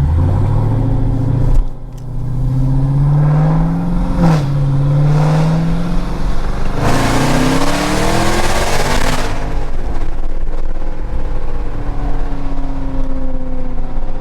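Jeep Grand Cherokee Trackhawk's supercharged 6.2-litre V8 accelerating hard, heard from inside the cabin. Its pitch rises, drops at a gear change about four seconds in and climbs again, then comes a rush of noise for about two seconds before it settles into a steadier drone. Really loud.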